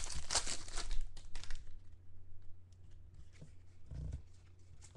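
Foil trading-card pack wrapper crinkling and tearing as it is pulled off the cards, fading after about a second and a half into faint clicks and rustles of the card stack being handled, with a soft low bump about four seconds in.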